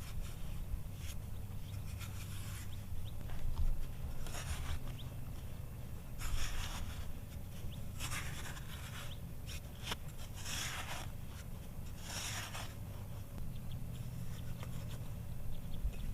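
Scraping or rasping strokes, about five of them spread out, each lasting around half a second, over a steady low rumble.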